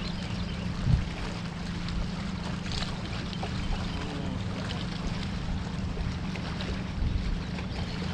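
Steady low hum of a bass boat's motor, with wind and water noise, and a single low thump about a second in.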